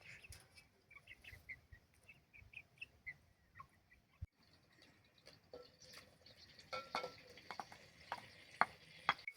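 Faint short high chirps of small birds for the first three seconds or so, then scattered light clicks and knocks.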